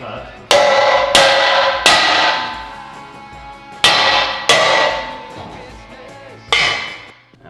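A hammer striking a steel square-tube cross brace under a truck's frame, knocking it out after its tack welds have been cut. There are six ringing blows: three in quick succession, two more after a pause, and a last one near the end.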